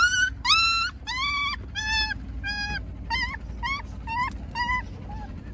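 A puppy whimpering in a quick string of high-pitched cries, about two a second, fainter and lower in pitch toward the end.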